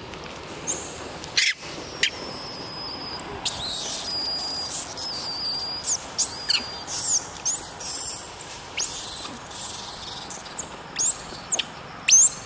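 Baby macaque crying: a run of short, very high-pitched squealing calls, each rising and then falling, repeated again and again. There is one sharp click about a second and a half in.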